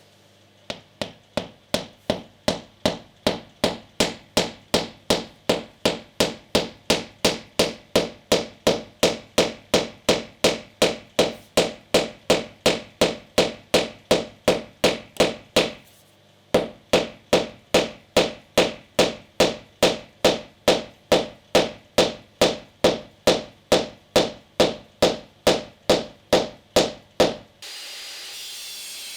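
Hammer blows on wood, struck steadily at about three a second, with a brief pause about halfway. Near the end the hammering stops and a steady hiss begins.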